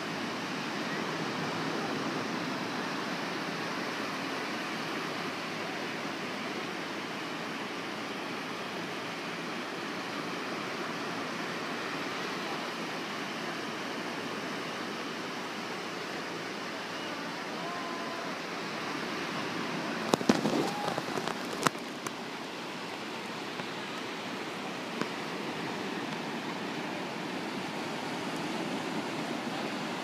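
Steady rush of surf breaking along a sandy beach. About twenty seconds in, a brief cluster of sharp crackles and knocks cuts across it.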